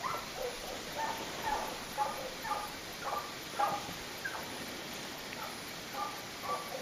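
A scent hound baying at a distance, giving tongue on a hare's trail: short yelping bays of about two a second, thinning out after the first few seconds.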